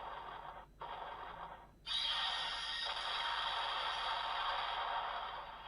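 Electronic monster roar sound effect from an Ultraman Decker DX toy's small speaker, played when a Red King Ultra Dimension Card is read: two short growls, then a longer roar that fades out.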